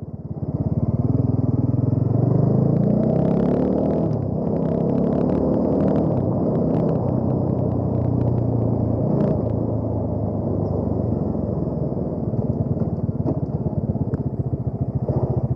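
Bajaj Dominar 400's single-cylinder engine running, rising in pitch as it revs up over the first few seconds and then holding a steady pitch.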